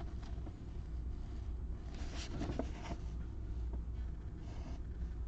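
Faint scratching and rustling from handling things at close range, with a few short strokes clustered around the middle, over a low steady hum.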